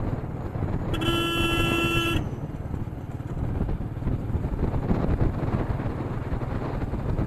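A vehicle horn sounds once, a single held tone lasting just over a second, starting about a second in. Underneath runs the steady wind and road rumble of a moving motorcycle.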